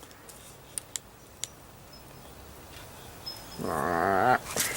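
A few faint sharp clicks, then near the end one short animal call with a wavering pitch, followed by a brief rustle.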